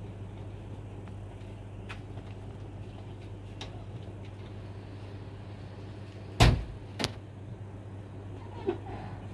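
A pickup truck's door slammed shut about two-thirds of the way in: one loud bang, then a lighter knock about half a second later, over a steady low hum.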